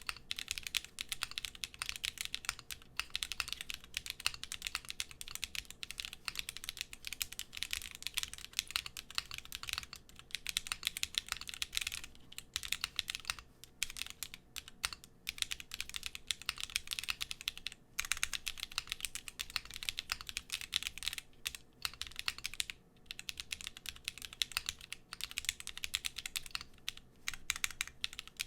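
Continuous fast typing on a wilba.tech Thermal mechanical keyboard with lubed, filmed Drop Holy Panda tactile switches and Cannonkeys Honeywell Bold keycaps: rapid key clicks, with a few brief pauses.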